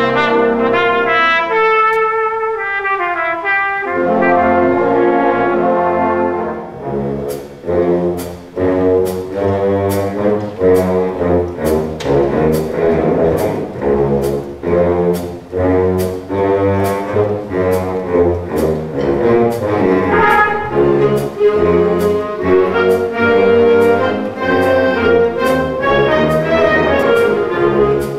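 Concert band with a trumpet soloist: a held trumpet note breaks into a falling run of quick notes, then the full band comes in with a steady percussion beat under the brass melody.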